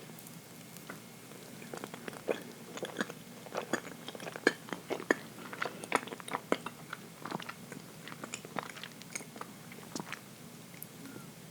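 A person chewing chocolate cake close to the microphone: irregular, moist mouth clicks and smacks, busiest from about two seconds in to about seven seconds, then sparser.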